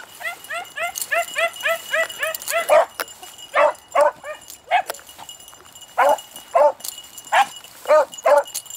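Beagles barking: a quick run of short yips, about five a second, for the first three seconds, then single louder barks spaced out through the rest.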